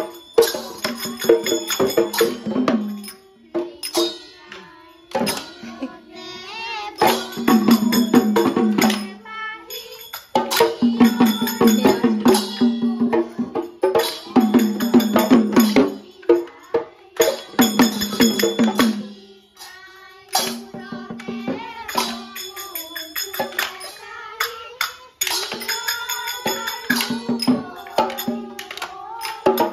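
Children singing husori, the Assamese Bihu carol, to drumming and cymbals. Loud passages of quick drum beats and clashing cymbals alternate with stretches of singing.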